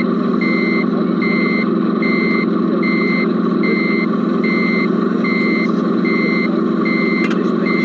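Reversing beeper of an RC Mercedes Actros SLT model truck, short high beeps repeating about every 0.8 s, heard from inside the model's cab over a steady low engine drone. A brief click sounds near the end.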